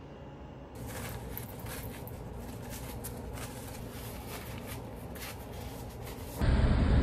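Paper towel rustling and crinkling as hands wipe a spoon dry, starting about a second in. Near the end it cuts suddenly to much louder street traffic noise.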